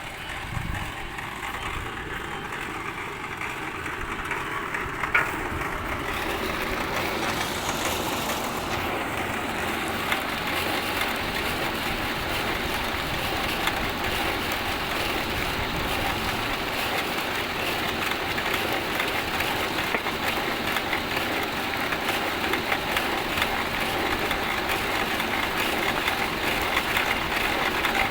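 Wood pellet mill running: a steady, dense mechanical clatter full of fine rapid ticks that builds up and grows louder over the first several seconds, then holds.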